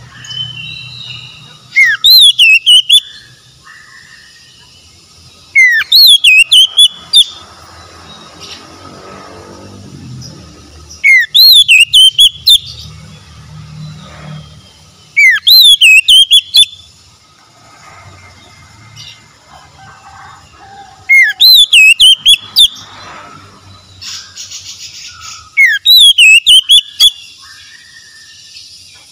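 Oriental magpie-robin singing loud repeated phrases, six in all, one every four to five seconds. Each phrase is a rising whistle followed by a quick run of high warbled notes.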